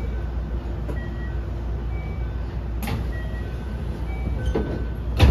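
Steady low hum inside a stopped 321 series electric commuter car with its doors open, with faint short tones at changing pitches. A knock comes about three seconds in, and a louder clack near the end as the sliding doors start to close.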